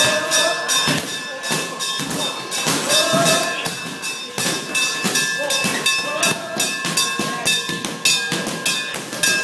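Many irregular slaps and thuds of kicks and punches landing on heavy bags and pads during Muay Thai training, with music and steady high tones behind them.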